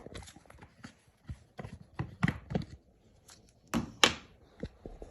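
Kitchen items being handled on a counter: a string of short taps and knocks, with two sharper, louder knocks about four seconds in.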